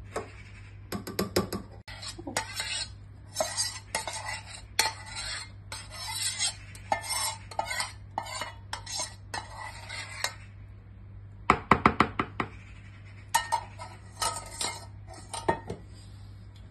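A utensil scraping and clinking against a small steel pot as melted chocolate is emptied into a plastic mixing bowl, with a quick run of louder taps on the pot about two-thirds of the way through, over a steady low hum.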